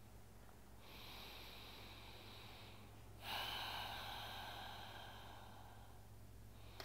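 Slow, audible yoga ujjayi breathing: one long breath starting about a second in, then a longer, louder one starting about three seconds in, over a faint steady low hum.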